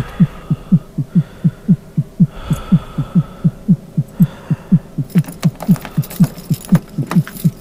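Steady pulse of low kick-drum thumps, about three and a half a second, each dropping in pitch. From about five seconds in, a rapid clatter of clicks joins it.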